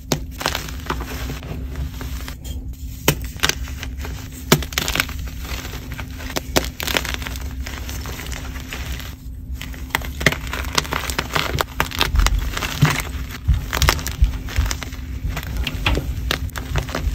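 Blocks of pearly gym chalk crushed and crumbled by hand: a dense run of irregular sharp crunches and crackles as the soft chalk breaks, with crumbs pouring through the fingers near the end.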